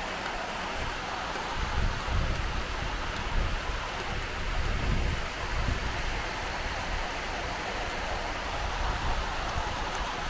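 Steady rain falling, a continuous even hiss, with uneven low rumbles from about two to six seconds in.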